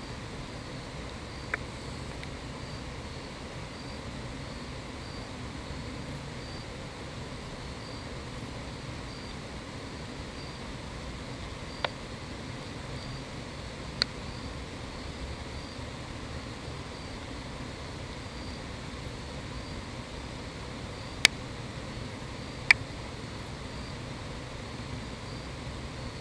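Steady outdoor background noise with a low rumble, and insects chirping in a slow, even pulse. Five sharp clicks stand out, the loudest two about a second and a half apart near the end.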